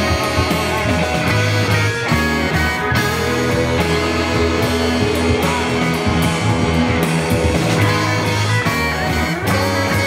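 Live rock band playing: electric guitars over bass and drums.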